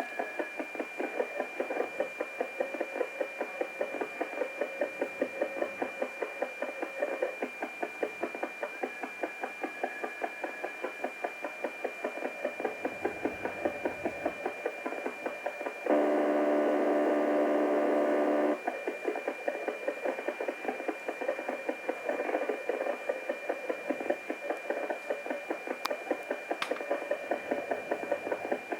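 Radio receiver tuned to 433.92 MHz putting out unidentified interference: a rapid, regular pulsing buzz over a faint steady whistle, replaced about halfway through for a couple of seconds by a louder steady buzzing tone. The noise runs around the clock, and the uploader rules out the solar power conditioner and suspects a fuel-cell unit (Ene-Farm) or heat-pump water heater (EcoCute).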